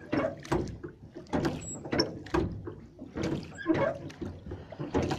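Wooden oars rowing a small boat: the blades dip and splash through the water, with a quick run of knocks and creaks from the oars several times a second.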